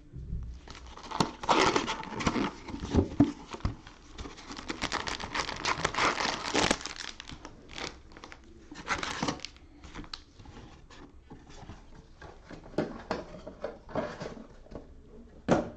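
Cellophane wrapping on a box of football card cello packs crinkling and tearing as it is opened by hand, busiest in the first half, then lighter rustling with a sharp crackle near the end.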